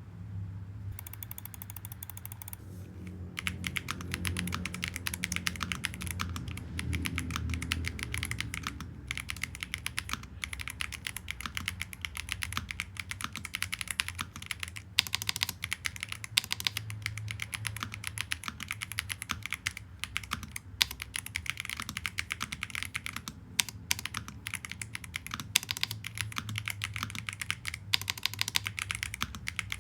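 Steady, fast typing on a Redragon Behemoth K724 Pro 75% mechanical keyboard with Yolk linear switches and PBT double-shot keycaps, a dense run of key clicks. The typing starts about three seconds in and breaks off briefly now and then.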